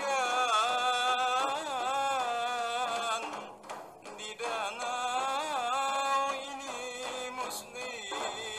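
A single voice chanting a Banjar syair, drawing each syllable out into long, wavering, ornamented notes, with short breaks between phrases about three and a half and six and a half seconds in.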